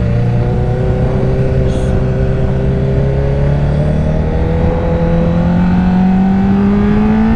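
Honda Fireblade's inline-four engine pulling steadily under acceleration, its note rising slowly and smoothly in one gear.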